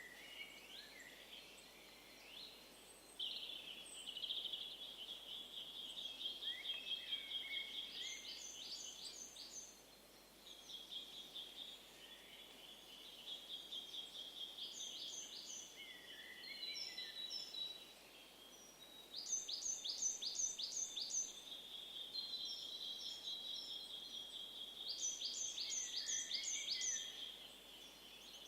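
Outdoor birdsong from several birds. One sings long rapid trills lasting several seconds at a time. Another gives short bursts of five or six high, sharp notes, repeated every few seconds.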